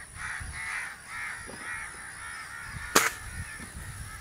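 A single sharp shot from a Gamo Shadow 1000 .22 spring-piston air rifle, about three seconds in, as the first pellet is fired at the target. Under it a bird calls repeatedly, two or three calls a second, fading toward the end.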